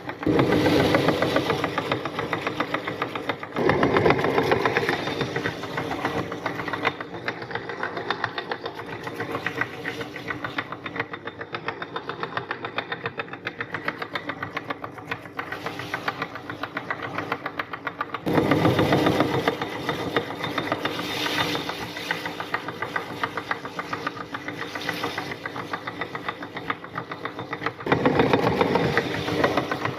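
Meat grinder running and grinding items, a steady motor sound with rapid rattling. It swells louder and rougher four times as the grinding gets heavier.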